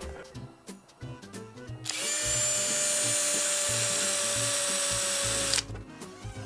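Cordless drill running at a steady speed for about three and a half seconds, starting about two seconds in and cutting off suddenly, screwing an anchor peg into the ice to hold down an ice-fishing tent.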